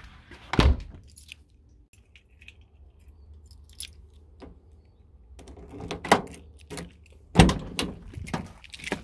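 A house door being pulled shut with a loud knock about half a second in, then keys jingling and small clicks. Near the end, a van door being unlocked and opened, with clatters and a heavy thud.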